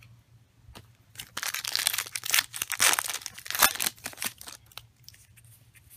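Foil Pokémon booster pack wrapper crinkling as it is pulled and torn open by hand. The crinkling runs densely from about a second in and fades to faint crackles near the end.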